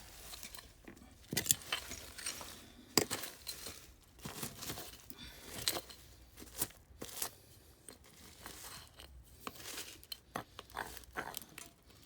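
Broken glass shards and rubble clinking, crunching and scraping as debris is raked through, in irregular knocks and clinks, the loudest about a second and a half and three seconds in.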